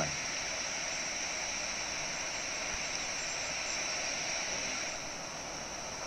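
Steady rushing hiss of a huge flock of common starlings' wingbeats, with no distinct calls, easing slightly about five seconds in.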